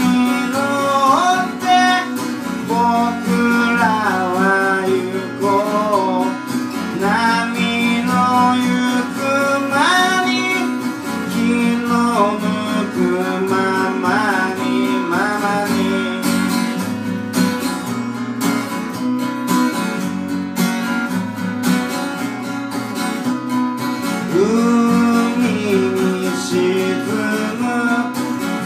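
Acoustic guitar strummed steadily while a man sings to it, a solo singer-songwriter performance.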